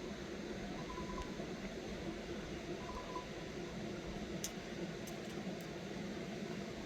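A steady rushing noise, with two short high beeps in the first half and a few sharp clicks later.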